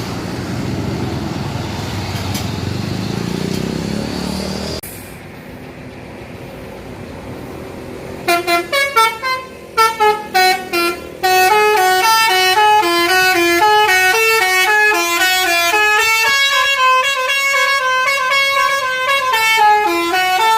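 A bus's basuri telolet horn, a multi-tone musical horn, playing a fast melody of stepped notes. It starts in a few short bursts and then plays continuously for the last ten seconds or so. Before it, a low rumble stops abruptly about five seconds in.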